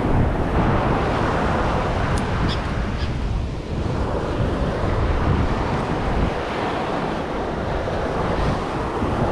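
Wind buffeting the microphone over a steady wash of water noise, with a few faint high clicks about two to three seconds in.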